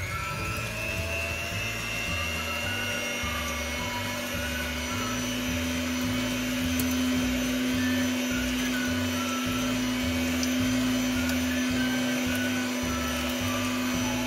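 Electric hand mixer spinning up with a quickly rising whine, then running steadily as its beaters whip eggs and sugar in a glass bowl, beating them until the mixture turns pale.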